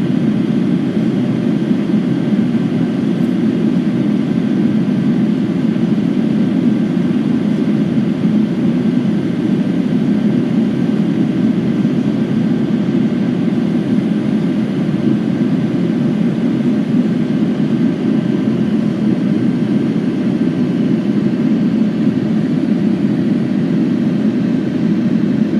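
Steady cabin noise inside a Boeing 787-9 airliner in descent: a low, even rush of airflow and engine noise, with a few faint steady tones above it.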